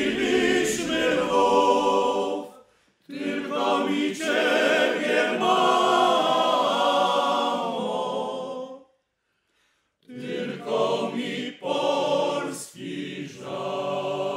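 Choir singing a cappella in long phrases, breaking off twice: briefly about two and a half seconds in, and for about a second around nine seconds in.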